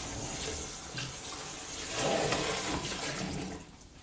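Kitchen tap running into the sink with a steady rush of water, which stops near the end.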